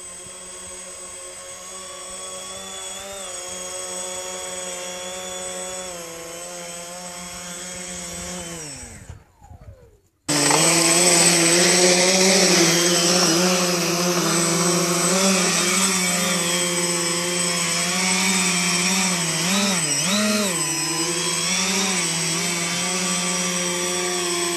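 HobbyKing C3 tricopter's electric motors and propellers whining steadily. About nine seconds in they wind down; after a short break they run again, much louder, and waver in pitch with throttle changes as the tricopter lifts off and hovers.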